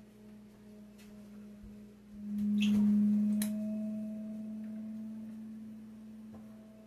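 A steady low hum swells much louder about two seconds in and then fades slowly, with a few light clicks and a knock over it.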